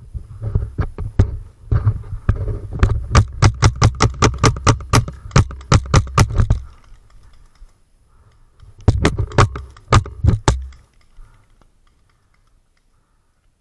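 Mock-combat game gun fired in quick succession: sharp shots, irregular at first and then a steady run of about five a second for several seconds. A shorter burst follows about nine seconds in, with a low rumble under the shots.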